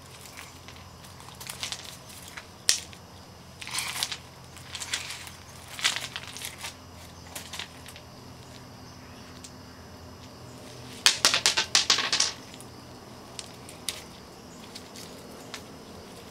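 Small rounded pebbles clattering and scraping as a toddler's hands rummage through them, with a quick run of sharp clacks about eleven seconds in as several stones knock together.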